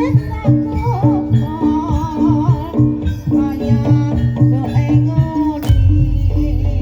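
Live jaranan (kuda lumping) ensemble music: a repeating pitched percussion pattern with a wavering melody line over it. A sharp knock comes about five and a half seconds in, followed by a steady low boom.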